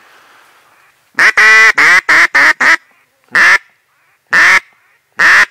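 Loud, close mallard-style quacking: one long quack about a second in, a quick descending run of four shorter quacks, then three single quacks about a second apart.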